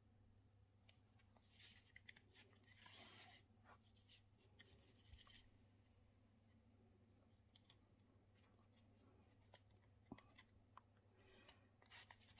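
Near silence: faint scratchy rustling of a needle and thread being drawn through the thread-wrapped surface of a temari ball during stitching, with a few small clicks, over a steady low hum.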